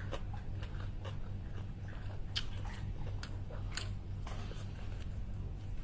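A person eating pancit noodles: soft chewing with scattered small mouth clicks, over a steady low hum.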